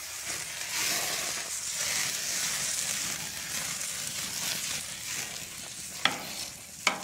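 Chunk of beef fat sizzling steadily as it is rubbed with tongs across a very hot gas-grill grate to oil it. Two short sharp clicks near the end.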